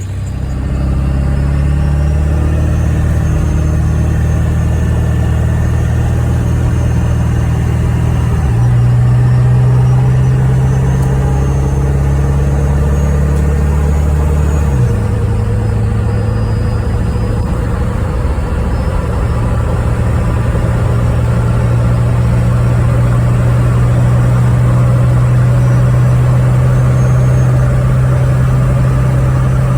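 7.3L Powerstroke V8 turbo-diesel engine of a 2000 Ford F250 running steadily. Its note changes abruptly about 8 seconds in and again about 15 seconds in.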